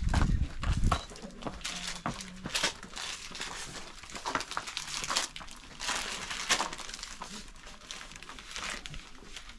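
Irregular rustling and crinkling, with a low rumble during the first second.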